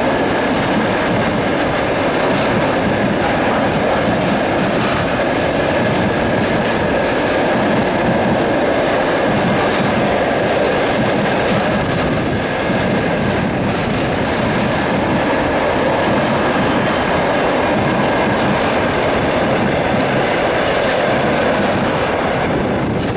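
Passenger train coaches rolling past, their wheels clattering over the rail joints in a steady, continuous rumble.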